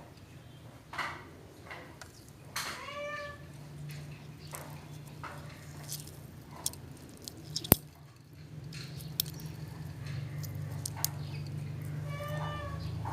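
A cat meowing twice, about ten seconds apart, each a short call that bends in pitch, over a low steady hum. There are scattered light clicks, and one sharp click near the middle.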